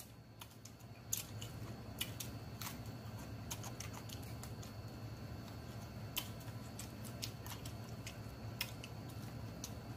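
A person chewing a mouthful of food close to the microphone, with scattered wet mouth clicks and smacks over a faint low hum.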